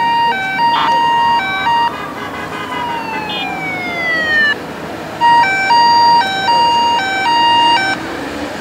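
Sirens of race escort vehicles: a two-tone siren stepping back and forth between a higher and a lower note, then a siren gliding down in pitch, then the two-tone pattern again, all over a steady background murmur.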